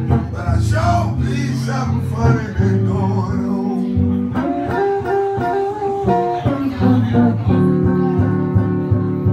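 Blues played live on a semi-hollow electric guitar: a repeating low bass-string pattern under picked single-note lines, some notes bent.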